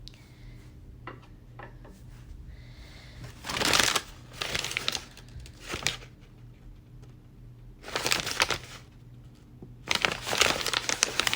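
Packaging crinkling in several bursts as a wooden toy animal is unwrapped by hand, with a couple of light clicks early on.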